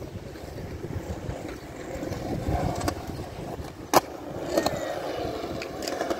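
Skateboard wheels rolling over smooth concrete, with one sharp clack of the board striking the ground about four seconds in, then a smaller knock as the rolling goes on.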